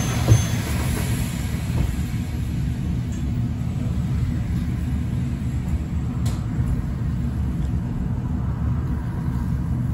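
Steady low rumble inside the upper deck of a stationary Alexander Dennis Enviro400EV battery-electric double-decker bus, with a single thump about a third of a second in and a faint click a little after six seconds.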